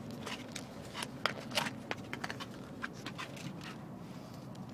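Steady road rumble inside a moving car, with a scatter of sharp clicks and rustles, most of them in the first three seconds.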